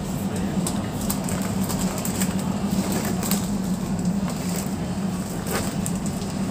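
Supermarket background noise: a steady low hum with scattered light clicks and clatter.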